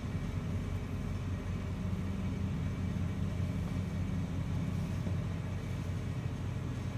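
Steady low rumble of indoor room noise with a faint, thin high whine over it.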